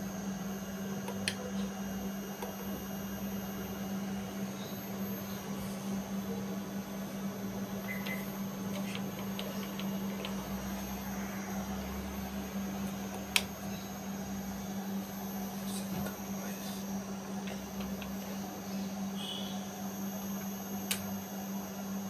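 Steady electrical hum of an ATM booth, broken by a few sharp clicks of the ATM's buttons being pressed, the loudest about halfway through.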